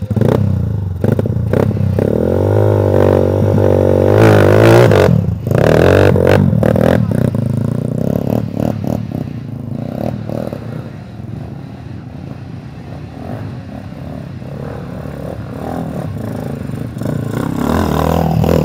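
Trail motorcycle engine revving up and down hard for the first few seconds, then running at lower revs with rattles and knocks from the bike on rough off-road ground.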